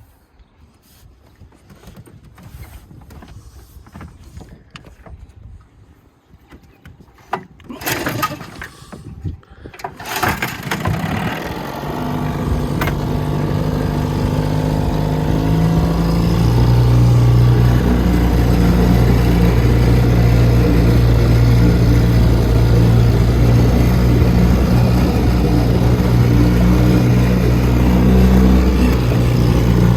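Small 1958 Evinrude 3 hp two-stroke outboard motor being started: a few knocks and clatter, then the engine catches about ten seconds in. It climbs to a steady running note over the next few seconds and holds there.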